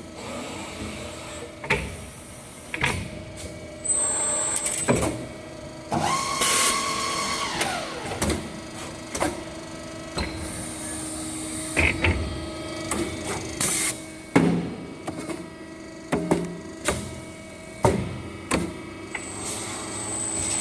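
CNC coiled-iron-tube straightening, expanding and chipless cutting machine running through its cycle: a steady motor hum under repeated sharp clanks, several short hisses, and a falling whine about seven seconds in.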